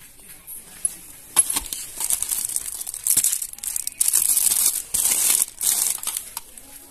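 Plastic-wrapped packages crinkling and rustling in several loud bursts as they are pulled off a shelf and handled.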